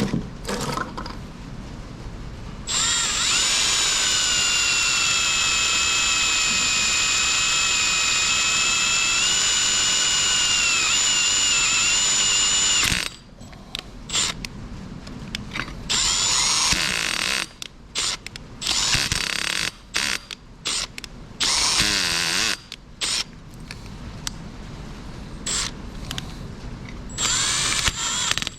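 Electric drill boring a hole into the cast-iron engine block for the next repair pin: a steady motor whine for about ten seconds, then a series of short bursts of drilling with pauses between.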